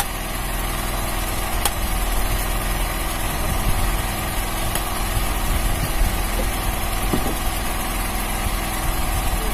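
A boat's engine running steadily, an even drone with a constant low hum, with a couple of faint clicks.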